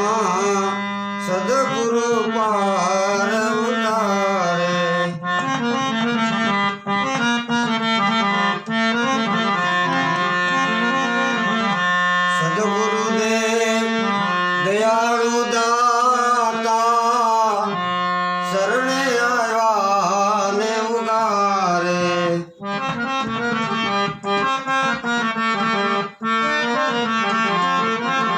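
Instrumental interlude of a devotional santvani bhajan: a reedy melody with many overtones moves over a steady drone, with tabla accompaniment.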